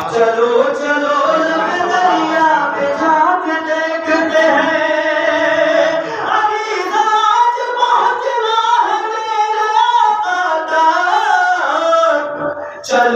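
A man sings a devotional Urdu kalam in a melodic chant, amplified through a handheld microphone.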